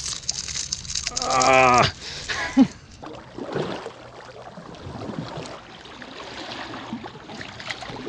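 River water sloshing and splashing around a swimmer being towed through the water on a leash. About a second in there is a short drawn-out voice.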